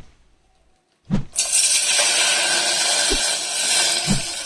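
A vessel clunks twice. Then milk is poured into a pan in a steady stream, starting about a second in.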